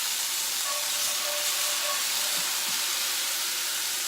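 Minced garlic sizzling in hot grapeseed oil in a cast iron skillet: a steady frying hiss.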